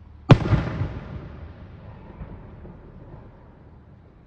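A single aerial firework shell bursting with one loud boom about a third of a second in, its rumble and echo fading away over the next couple of seconds.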